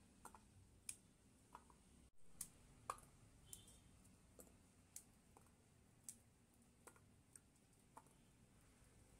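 Small pieces of apple dropped one by one into a stainless steel dog bowl, making faint, sharp clicks at irregular spacing, about a dozen in all.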